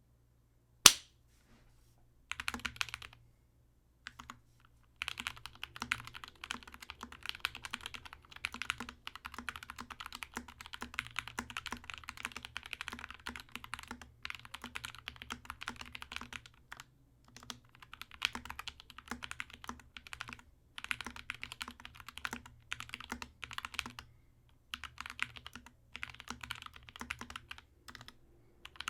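Typing on an SK61 60% mechanical keyboard with lubed and filmed Gateron Brown tactile switches, in fast runs of keystrokes broken by short pauses. A single sharp click, louder than the typing, comes about a second in.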